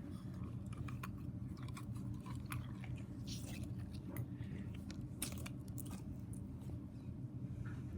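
Slime with sprinkles in it being squeezed and worked by hand, giving scattered small crackles and clicks. A faint steady hum lies underneath.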